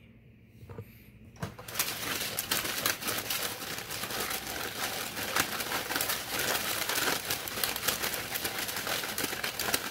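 A deck of tarot cards being shuffled by hand: a dense, steady rustle and clatter of cards that starts about two seconds in and keeps going.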